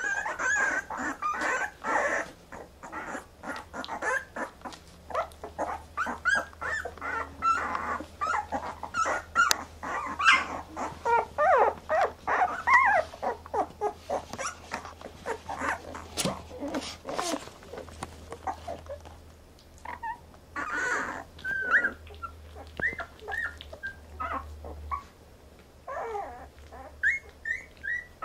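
Newborn Brittany Spaniel puppies squeaking and whimpering, many short high squeals one after another, busiest in the first half and thinning out later, among small clicks and rustles.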